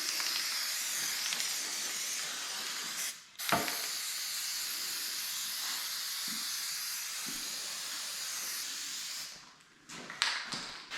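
Spray adhesive hissing out in a steady stream. It breaks off briefly with a click about three seconds in, resumes, and stops near the end, followed by a few light knocks.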